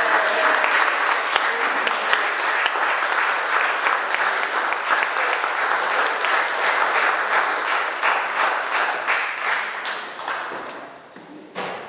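Audience applauding, a dense steady clapping that dies away over the last couple of seconds, with a single sharp knock near the end.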